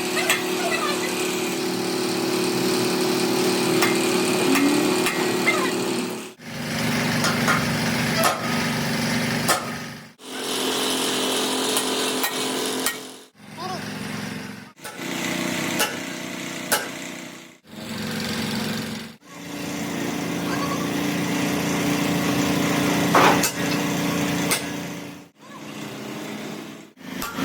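Workshop sounds in a series of short cuts: a steady machine hum with scattered metallic clicks and taps, and voices in the background.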